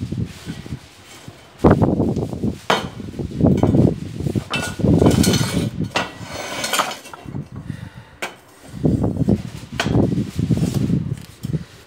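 Square steel tube being handled on a stone-tiled floor and set against a magnetic welding square: several sharp metal clanks and clinks among duller scraping and handling noises.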